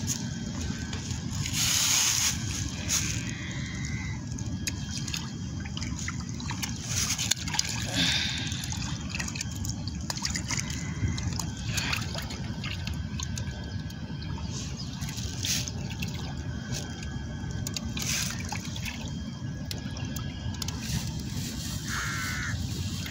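Fish splashing at the water's surface as they snatch bits of food floating on it: several sharp splashes a few seconds apart, over a steady low rumble.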